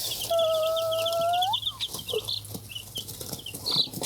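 A group of chicks peeping continuously, many short, high, downward-sliding peeps several times a second. Near the start a single drawn-out lower note lasts about a second and lifts in pitch at its end.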